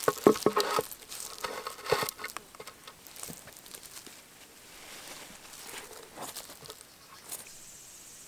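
Crinkling and rustling, loudest and densest in the first two seconds, thinning to scattered soft clicks and rustles afterwards.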